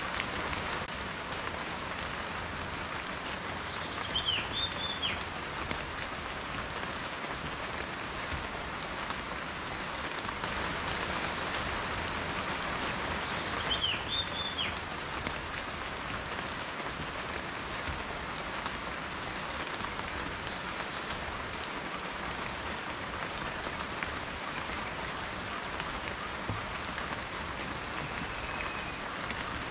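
Steady rain falling and pattering on surfaces. A short high chirp sounds about four seconds in and again about ten seconds later.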